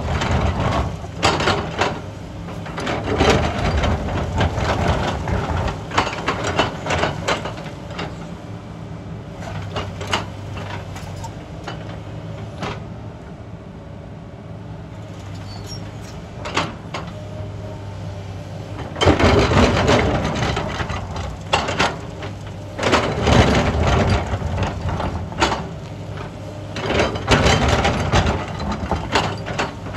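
Sany crawler excavator's diesel engine running under load while its bucket digs and scrapes into loose shale-like rock, with repeated bursts of rock clattering and grinding. In the middle stretch there is a quieter spell with mostly the engine.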